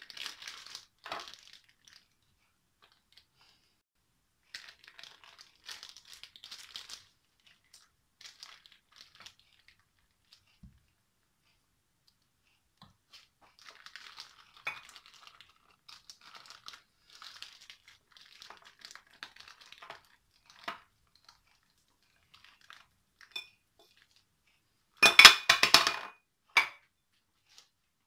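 Plastic piping bag crinkling and rustling in irregular spells as choux pastry dough is spooned into it with a spatula. A much louder burst of crinkling and knocks comes near the end.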